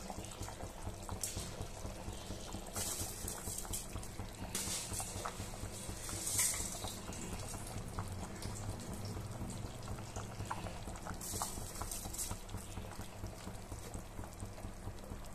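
Chicken broth bubbling at a hard boil in an open aluminium pressure cooker, a steady crackling bubble. A few short swishes come as handfuls of drained soaked rice are dropped into the boiling liquid.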